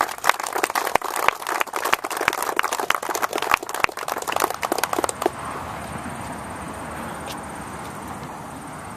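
A small crowd applauding with many quick, irregular hand claps for about five seconds. The clapping then stops, leaving a steady outdoor background hiss.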